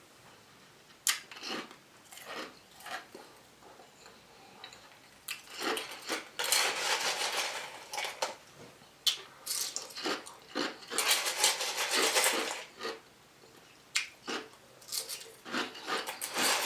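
Ice being crunched and chewed close to the microphone, with a spoon clicking and scraping in a cup of ice. A few sharp clicks at first, then about halfway in, long stretches of dense crunching.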